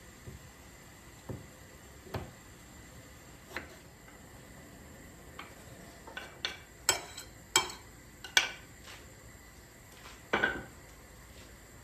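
Dishes and cutlery being handled and set down: scattered sharp clinks and knocks, with a quick run of ringing clinks about seven to eight and a half seconds in.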